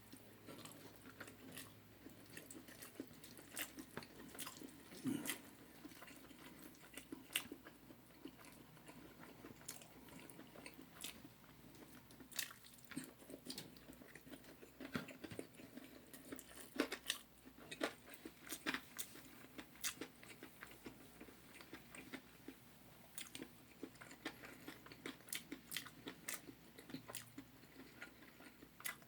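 A person eating spicy Korean fried chicken close to the microphone: irregular crunchy bites and chewing, with frequent small crackles and clicks.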